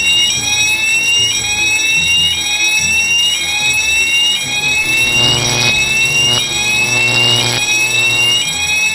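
Electronic fire alarm sounding: a rapid, repeating rising sweep, about three sweeps every two seconds, over a low pulsing rumble. Loud rushing bursts cut in about five and seven seconds in.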